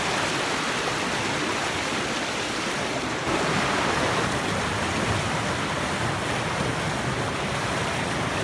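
Water rushing over a dam and down its salmon ladder, a steady roar that gets louder about three seconds in.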